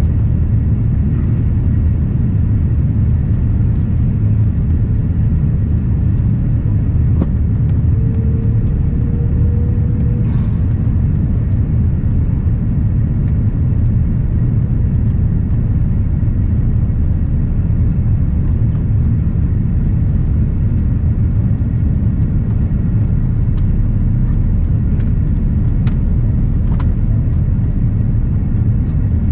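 Steady low rumble of an Airbus airliner's cabin in flight: engine and airflow noise. A few faint ticks and a brief faint tone sound over it.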